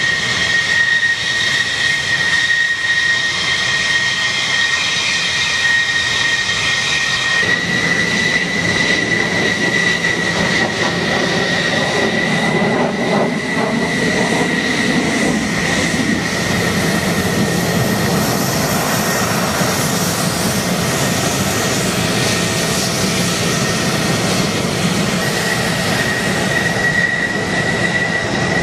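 F-15 and F-16 fighter jet engines running on the airfield with a steady high whine. About seven seconds in, a deeper, fuller jet noise joins the whine and carries on.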